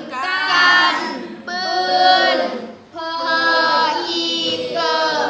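A group of children's voices chanting in unison, a class reading phonics sounds and words aloud together in long, drawn-out, sing-song syllables.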